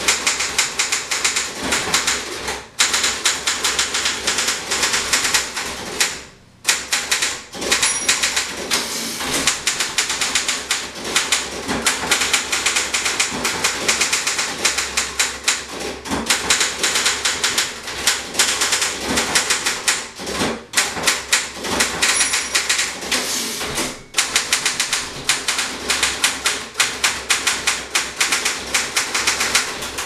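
1932 Royal No. 10 standard manual typewriter being typed on steadily: a rapid run of typebar strikes with a few brief pauses.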